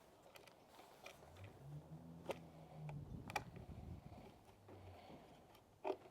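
Allen wrench turning metric button-head cap screws into the brass inserts on the back of a display: faint light ticks of metal tool on screw, with three sharper clicks. A low hum comes in through the middle.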